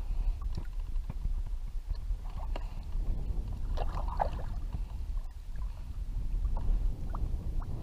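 Paddle and fishing rod knocking, clicking and squeaking against a plastic kayak, over a low, steady rumble of wind on the camera's microphone. The loudest squeaks come in a short cluster about four seconds in.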